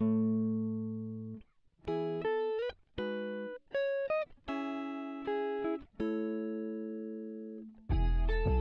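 Background music: slow plucked chords, each ringing out and fading before the next, with a louder, fuller passage with bass coming in near the end.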